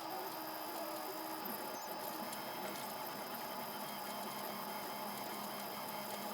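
3D printer running: a steady hiss of fans and motors with a faint high-pitched tone.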